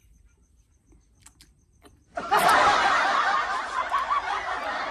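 Laughter, starting suddenly about two seconds in and going on for about three seconds.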